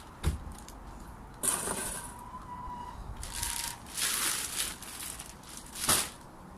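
Well-rotted manure being shovelled and tipped onto the garden bed: a dull thump just after the start, then several short scraping, rustling strokes, the sharpest near the end.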